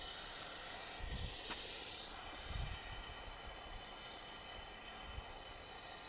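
Gas brazing torch flame hissing steadily, with a few low rumbles.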